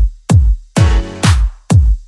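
Electronic dance music with a heavy kick drum on every beat, a little over two beats a second, and a short held synth chord about a second in.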